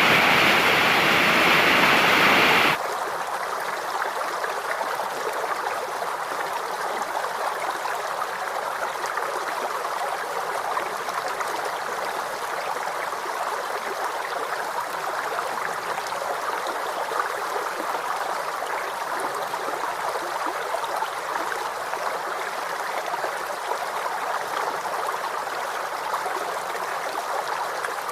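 Waterfall, a steady rush of falling water. About three seconds in it cuts off abruptly to a quieter, thinner, steady flow of water, like a stream.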